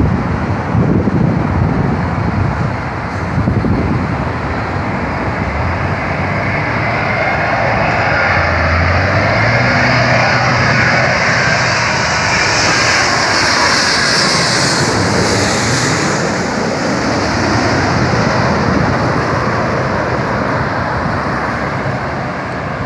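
Jet engines of a Boeing 777 on landing approach: a steady roar that swells and grows hissier as the airliner passes, loudest a little past halfway, then eases off. Wind buffets the microphone, strongest in the first few seconds.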